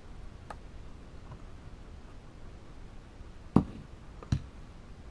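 A faint click, then two sharp clicks about three and a half and four and a quarter seconds in, the first the loudest. They come from a small screwdriver and plastic laptop parts being handled during disassembly.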